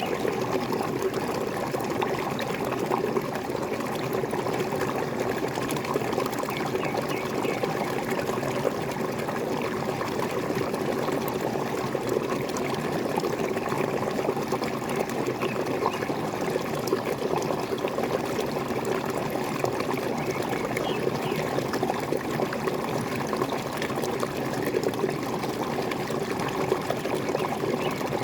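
Small waterfall pouring and trickling, a steady splashing of falling water.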